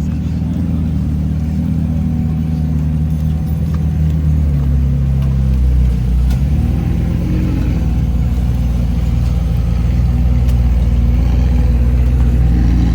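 A car engine running at low revs, its pitch dropping a little about five seconds in and then holding steady.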